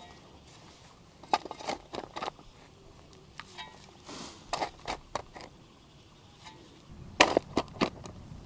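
A series of sharp clicks and knocks in irregular clusters, with a brief hiss about four seconds in and the loudest knocks near the end.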